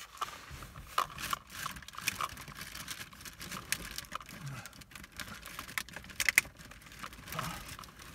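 Rummaging inside a car: irregular clicks, taps and knocks of objects being moved as someone reaches into the back seat, with the rustle of a nylon jacket.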